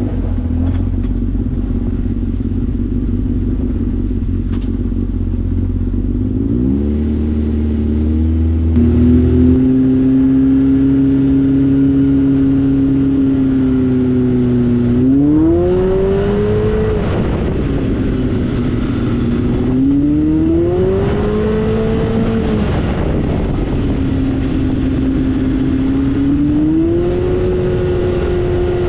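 Polaris RZR side-by-side's engine running hard under way, its pitch holding steady, then rising and settling back several times as it accelerates.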